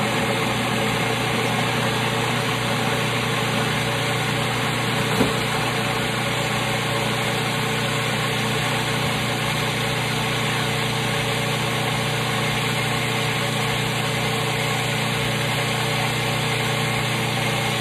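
Cuisinart food processor running steadily, its motor humming and its blade churning a wet mix of garlic, onion, peppers and olives into sofrito.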